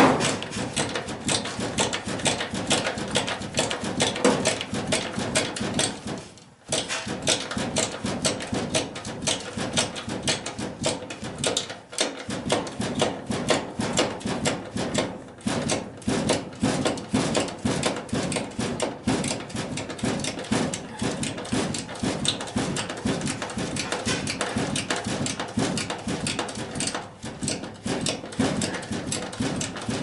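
Fast, continuous clicking and rattling from hand and tool work on a gas furnace's blower motor, with short breaks about six and twelve seconds in.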